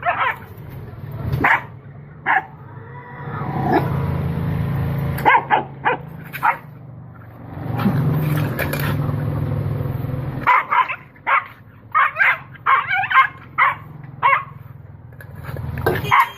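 A dog barking and yipping in short repeated barks, coming in a quick run near the end. Under the barks in the middle is a steady low hum that cuts off suddenly about ten seconds in.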